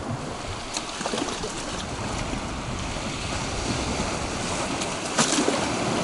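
Small sea waves washing over and lapping against a low concrete breakwater, a steady rushing wash with a few short splashes about a second in and near the end.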